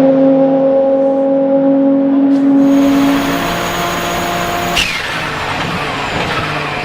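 Twin-turbo 3.9-litre flat-six of a Porsche 997 GT2 RSR running at steady high revs. About three seconds in the note fades and a rushing hiss comes in, with a single sharp click shortly after, as the engine runs on at a lower, rougher note.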